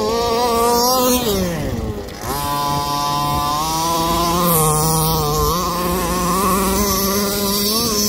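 Small two-stroke petrol engine of a 1/5-scale Baja 5B RC buggy revving high. About a second in the pitch falls sharply as the throttle is let off, then it picks up again and holds a high, wavering rev as the buggy runs across the grass.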